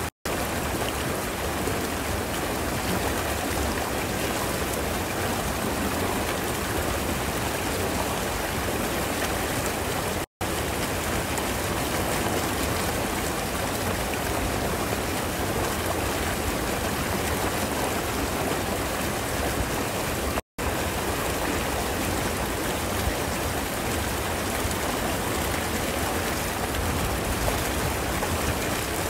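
Water rushing steadily through a concrete canal gate, a constant even rush with no change in strength.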